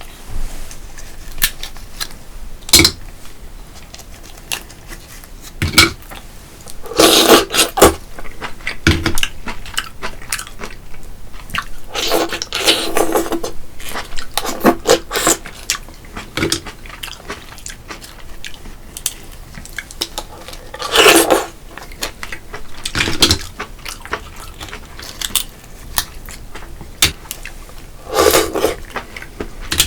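A person eating close to the microphone: bursts of chewing and crunching every few seconds, with sharp clicks of utensils against dishes in between.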